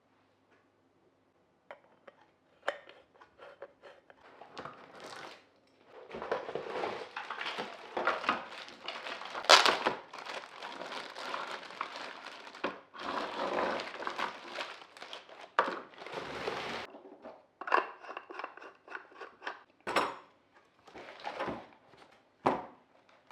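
Unboxing by hand: packaging rustling and crinkling as it is opened, with clicks and light knocks and clinks of the items being picked up and set down. It starts after a short quiet moment and comes in bursts, loudest in the middle.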